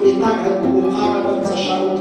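Music: a melody of long held notes over a steady accompaniment.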